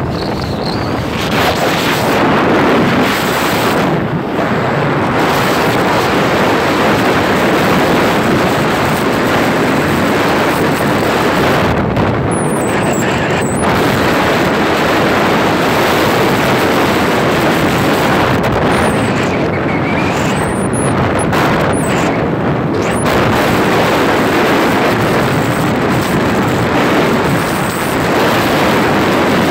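Steady, loud wind buffeting the microphone of a moving vehicle on a dirt road, with the vehicle's engine and tyre noise running beneath it.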